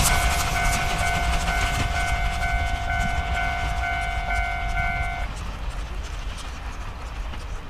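Steam train hauled by tank locomotives C11 325 and C12 66 drawing away, its wheels rumbling and clattering on the rails and fading. A steam whistle blows one long, steady blast that cuts off about five seconds in.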